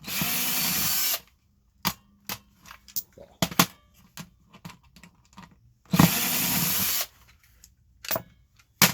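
Power drill running in two short bursts of about a second each, backing out the screws of a small plastic printer control panel, with light clicks and taps of screws and plastic being handled in between.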